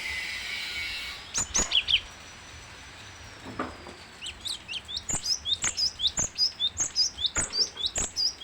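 Cinereous tit (gelatik batu) singing: a few sharp high notes about a second in, then from about halfway a fast, steady run of repeated two-note phrases. A brief hiss sits under the first second.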